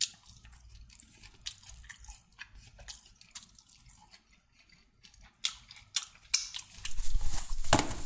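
A person chewing and biting into devilled chicken close to the microphone, with scattered small crunches and clicks. The crunches get louder and come more often near the end.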